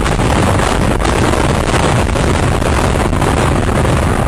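Loud, steady rumble of a multi-storey building collapsing in a demolition implosion, its structure and falling debris coming down just after the explosive charges.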